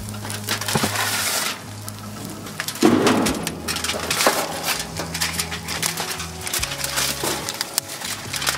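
Aluminium foil crinkling and crumpling as it is folded up by hand, in irregular crackles.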